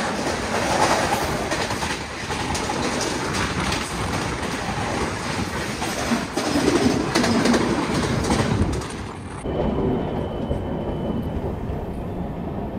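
Rushing noise and wheel clatter of a passenger train passing close by on the next track, heard from the open door of a moving train. About nine seconds in the noise drops sharply, leaving the quieter rumble of the train's own running.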